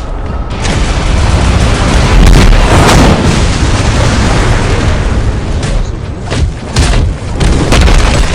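Very loud, dense booming noise with a heavy low end, running without a break and dipping briefly about six and seven seconds in.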